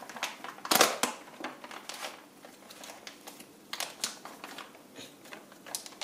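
Plastic packaging crinkling and crackling in the hands as a small bag of parts is handled and opened, in irregular sharp crackles, the loudest about a second in.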